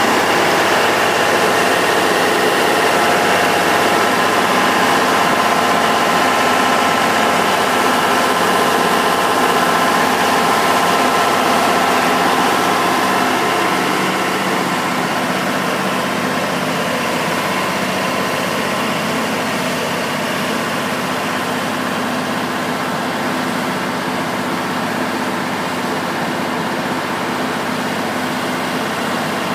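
1996 Toro Progrind 5000 tub grinder running, its Cummins diesel engine going steadily with a steady whine over the hum; the sound drops a little about halfway through.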